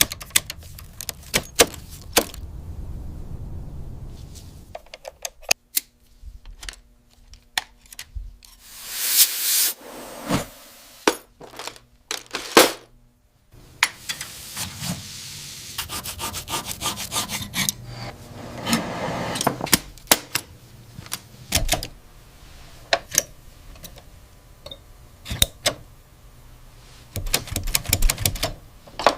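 Typewriter restoration work: scattered sharp clicks and taps, stretches of rubbing or scrubbing, and near the end a quick run of typewriter key strikes.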